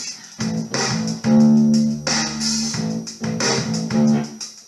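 Rock music led by a distorted electric bass, playing a riff of sustained notes with short breaks between phrases.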